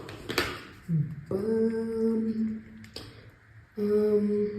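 A woman humming two long, steady notes with a short break between them, and a light click about three seconds in.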